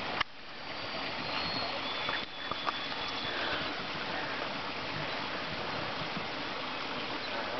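Steady rushing noise, like flowing water, that drops away briefly right at the start and again about two seconds in.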